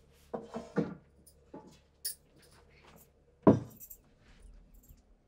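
Steel dishes, cups and a serving pot clinking and being set down as food is served, in a handful of short clicks and knocks, with one louder thump about three and a half seconds in.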